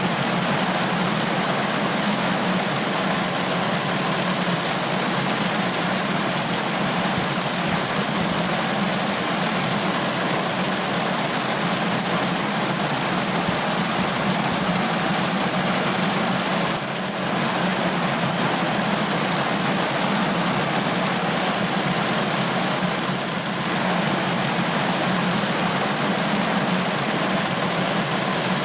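Rain falling steadily on a car roof, an even dense hiss that dips slightly twice.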